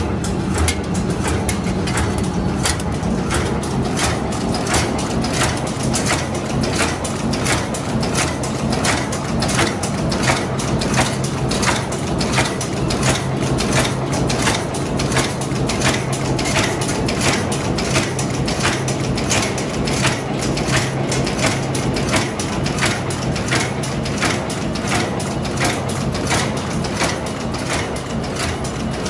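Semi-hollow rivet making machine running, its forming strokes knocking in an even rhythm about twice a second over a steady motor hum.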